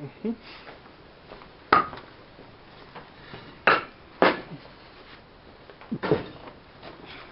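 Hard pieces of a kiln's temporary arch support knocking and clunking as they are worked loose and lifted out by hand: a handful of sharp knocks a second or two apart, two of them close together near the end.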